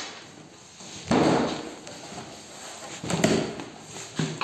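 Cardboard carton flaps being folded open and handled by hand, with two louder scraping thumps of cardboard, about a second in and again about three seconds in.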